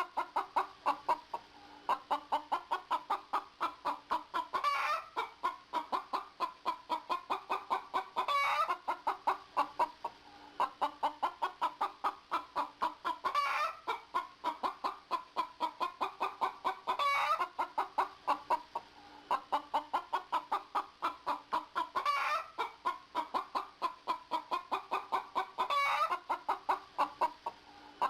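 A chicken clucking in quick runs of short notes, several a second. Every few seconds the clucks break into a longer call that rises in pitch, the pattern of a cackle.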